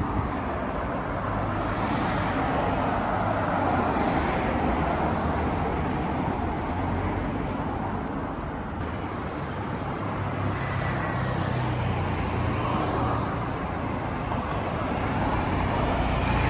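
Road traffic: cars passing on a street, a steady rush of tyres with a low engine hum that swells as vehicles go by, about two to four seconds in and again around ten to thirteen seconds in.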